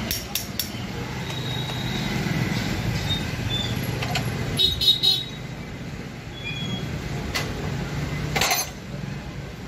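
Street traffic noise with vehicle engines running steadily, and a short horn toot about five seconds in.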